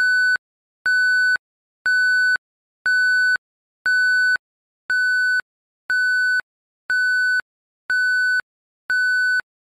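Electronic countdown-timer beeps: a steady beep about half a second long, repeated once a second, ten times.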